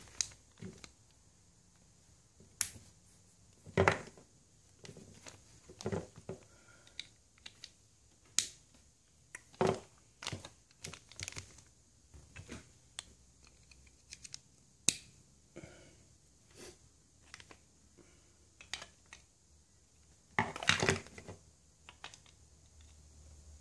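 Small plastic parts and a plastic parts bag being handled while ball bearings are fitted into the nylon gears and gearbox case of a radio-controlled car's transmission: scattered clicks and taps with bursts of bag crinkling, the longest about twenty seconds in.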